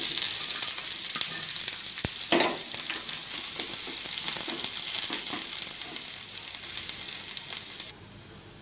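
Sliced onions dropped into hot oil with chopped garlic in a frying pan, sizzling loudly as they are stirred with a spatula, with a sharp tap about two seconds in. The sizzle cuts off suddenly near the end.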